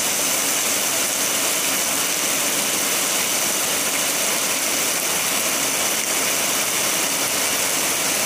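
Heavy rain pouring steadily, a loud, even hiss of falling water.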